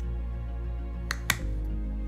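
Soft, steady background music. A little past a second in come two quick clicks: the snap of the Tempo Smart Button seating onto the dose knob of the Tempo insulin pen.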